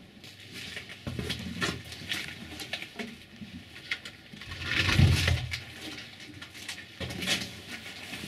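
Handling noise from a tractor's lead-acid battery being picked up off a concrete floor and carried in a small room: scattered knocks, clicks and steps, with one heavier thump about five seconds in.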